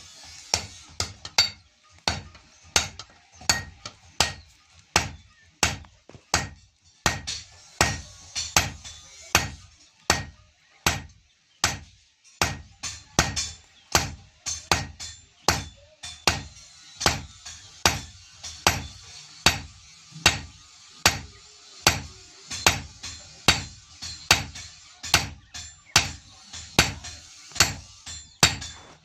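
Blacksmith's hand hammer striking iron blade stock on an anvil in a steady rhythm, about two blows a second, each with a short metallic ring: hand forging of a katari blade.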